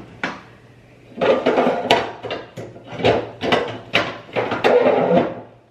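Toiletries and bathroom organizer containers knocking and rattling as they are handled and set down, in several bursts of clatter.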